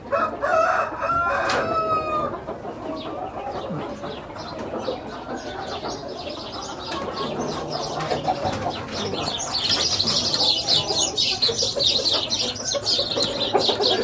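Rooster crowing near the start: one long pitched call that glides and then falls away. From about halfway on, a busy high chattering of chirps builds and grows louder toward the end.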